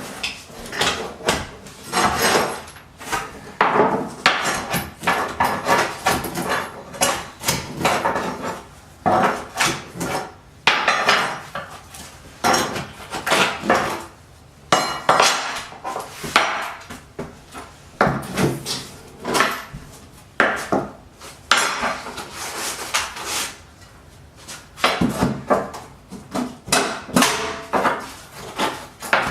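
Claw hammer striking nails into wood, many sharp blows in irregular runs with short pauses between, each hit with a metallic clink.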